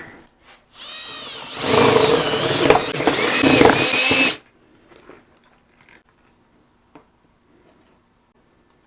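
Power drill with a half-inch bit boring through the plastic rear fender. It runs for about three and a half seconds, its motor pitch wavering under load, and gets louder once the bit bites about a second after starting. It stops suddenly, followed by a few faint clicks.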